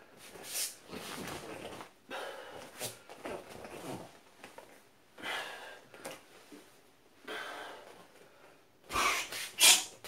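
A man's forceful, breathy mouth sounds and exhalations in short bursts, made as part of a qigong routine. The loudest comes as two sharp blasts near the end.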